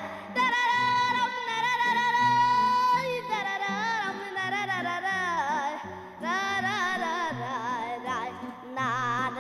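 Background music: a song with a wavering, ornamented lead melody over a stepping bass line, holding one long note from about half a second in until about three seconds in.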